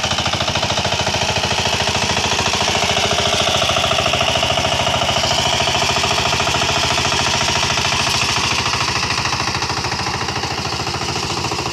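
A small engine running steadily with a rapid, even chugging beat, easing slightly in level toward the end.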